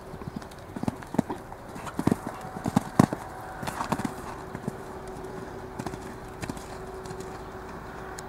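Hoofbeats of a cantering show-jumping horse on sand footing, with a cluster of heavier thuds about two to three seconds in as it takes off and lands over a fence, then lighter strides as it canters on.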